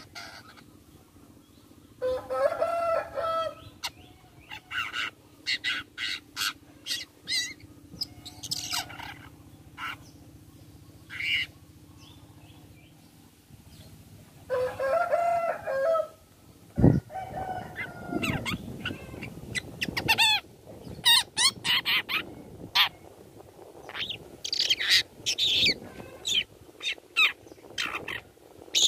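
Caged long-tailed shrike (cendet) singing a varied song of quick, sharp, high notes, broken twice by a longer harsh, buzzy call. There is a single knock about two-thirds of the way through.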